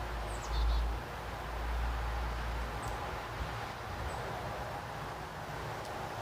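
Outdoor background: a low rumble, heaviest in the first few seconds, with a few faint, high bird chirps.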